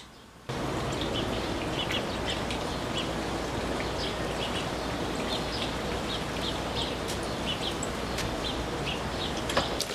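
Small birds chirping in short, repeated calls over a steady rushing background noise that starts about half a second in.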